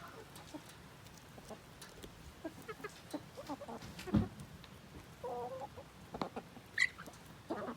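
A flock of domestic chickens clucking in short, scattered calls, with a longer drawn-out call about five seconds in. One sharp knock about four seconds in.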